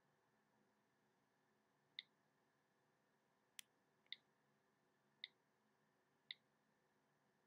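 Faint iPhone keyboard key-click sounds from the phone's speaker as keys are flicked: four short ticks about a second apart, with one sharper click between the first two.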